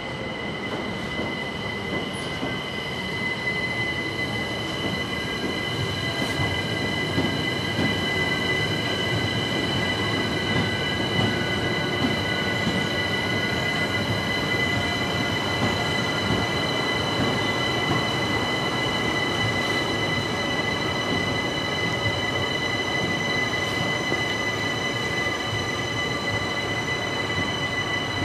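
Two coupled London Overground Class 378 Electrostar electric multiple units running past a station platform: a steady rumble of wheels on rail with a high whine of several steady tones, and a fainter tone slowly falling in pitch. The sound grows louder a few seconds in as the train comes alongside.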